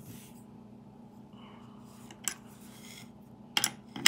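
Sharp metal clinks of a small wrench on a nut as the bolt of a V-slot gantry plate's wheel is tightened. There is one clink about two seconds in and two close together near the end.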